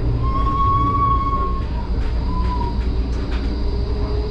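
HermeLijn tram running, a steady low rumble heard from inside its rear cab. Near the start a thin high tone holds for about a second and a half, a shorter one follows just after two seconds, and a lower whine rises slowly near the end.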